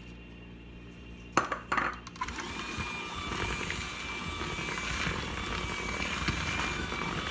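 A brief clatter about a second and a half in, then an electric stand mixer's motor starts and runs steadily with a high whine, mixing chopped pecans into cookie dough.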